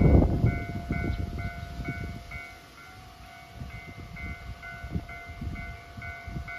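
Railway level-crossing warning bell ringing on and on, about two strokes a second, as a 721 series electric train approaches. Low, irregular rumbling is loudest at the start and eases off about three seconds in.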